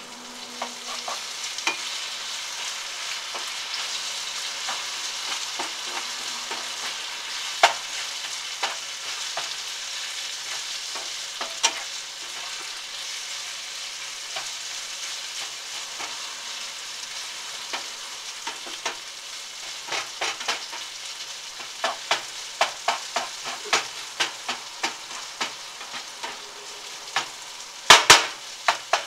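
Grated potatoes and bacon frying in a frying pan: a steady sizzle, with a spatula scraping and clicking against the pan as they are stirred, the clicks coming more often in the second half. A few loud knocks near the end as the spatula hits the pan.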